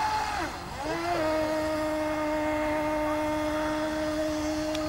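Electric motor of a radio-controlled racing boat whining at speed. About half a second in the whine drops in pitch and fades briefly, then comes back and holds a steady, lower pitch.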